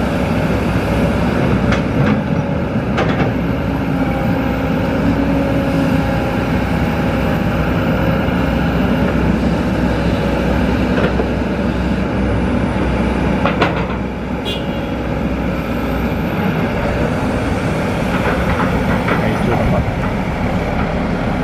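Kobelco SK200 excavator's diesel engine running steadily under hydraulic load while it loads soil into a dump truck, with the truck's diesel engine running alongside. A few sharp knocks and thuds, from the bucket and the soil dropping into the steel truck bed, stand out above the drone.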